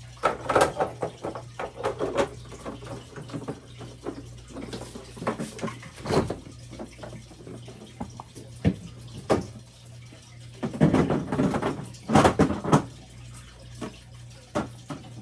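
Tap water running and a steel saucepan being filled for boiling eggs, with irregular knocks and clinks of eggs and cookware.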